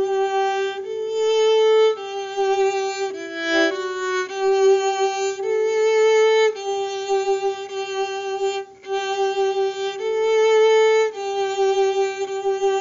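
Solo violin bowing a simple melody line of long, even notes that move mostly between two neighbouring pitches, with a short passage of quicker note changes a few seconds in and a brief break in the sound about two-thirds of the way through.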